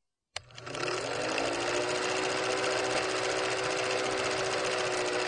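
Film projector sound effect: a fast, steady mechanical clatter over a motor hum. It starts abruptly, rises briefly in pitch as it gets up to speed, and has a sharp click near the end.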